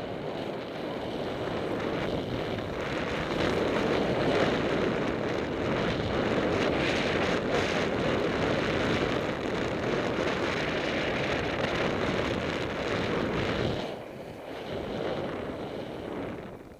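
Wind rushing over a skier's camera microphone during a fast downhill run, mixed with the skis sliding through snow; it eases off about fourteen seconds in.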